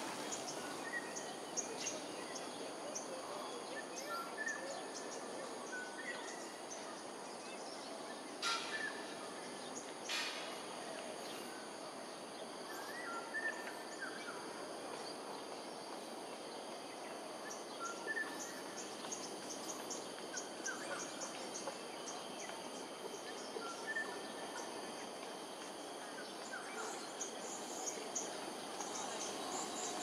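Steady outdoor background noise with scattered bird chirps and short whistled calls, including a quick run of high chirps in the second half. Two brief harsh sounds stand out about eight and ten seconds in.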